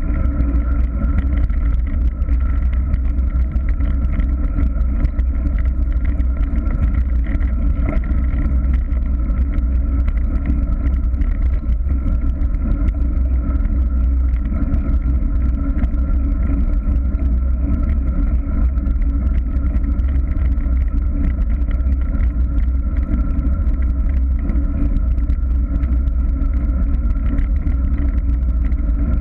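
Steady rush of wind on the microphone of a handlebar-mounted camera, mixed with tyre noise from a bicycle rolling along a rough asphalt lane; the rumble stays even throughout.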